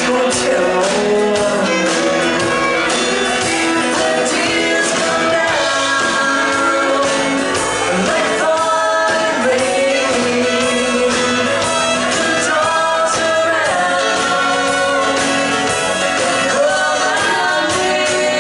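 A live country song: a woman sings with acoustic guitar strumming and a fiddle playing along, heard in a large room.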